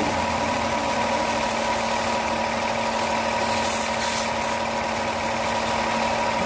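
Car-wash pressure washer running steadily, its motor and pump giving a constant hum under the hiss of the water jet spraying over a car body. The spray briefly turns hissier twice in the middle.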